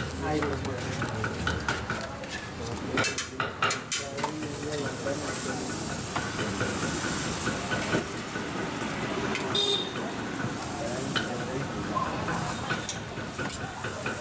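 Butter sizzling on a hot flat griddle (tawa) as dabeli buns toast, the hiss strongest midway. Steel spoons and bowls clink as filling is scooped, with a cluster of sharp clicks a few seconds in.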